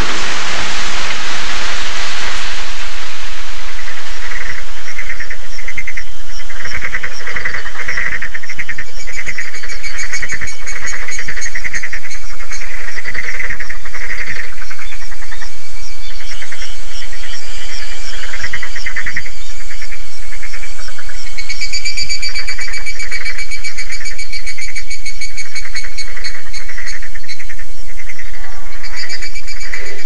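Nature field recording played back from cassette tape: rain hiss dies away over the first couple of seconds, then rhythmic trilling animal calls repeat through the rest, with a second, higher trill growing stronger about two-thirds of the way in.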